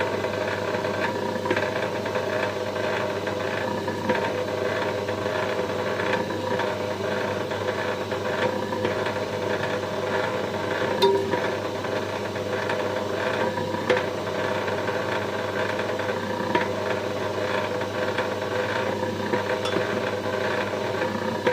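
Electric wire stripping machine running steadily, its motor humming with a light rattle as waste wire is fed through and stripped. A few sharp clicks stand out now and then.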